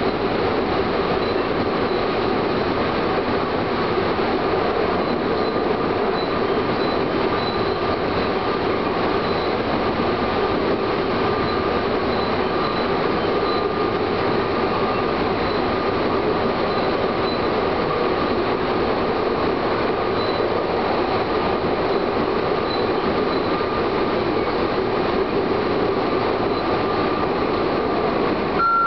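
Chichibu Railway electric train running steadily along the main line, heard from the front of the train: an even running noise of wheels on rail and motors, with a faint high whine that comes and goes.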